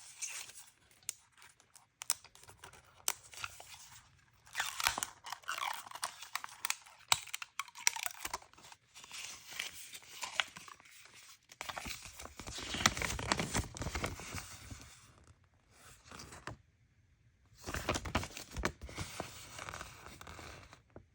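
Toy packaging crinkling and tearing as it is unwrapped by hand, in bursts of crackle and sharp clicks with short pauses between.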